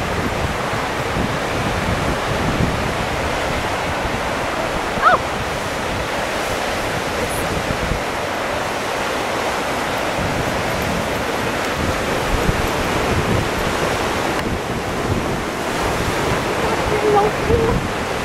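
Lake Michigan waves breaking on the shore in a steady wash, with wind on the microphone.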